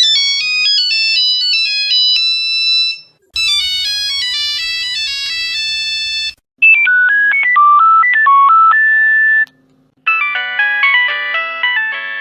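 Nokia mobile phone ringtones, four short melodies one after another with a brief silence between each, differing in tone from a thin high-pitched version to fuller, richer ones.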